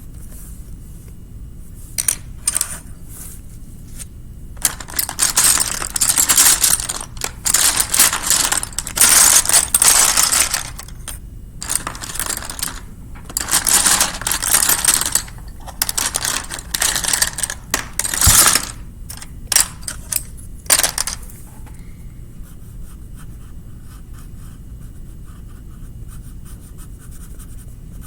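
Rapid back-and-forth scribbling strokes of a drawing tool coloring in an area on paper, in runs of strokes with short pauses between them. The strokes stop about 21 seconds in, leaving only faint light scratching.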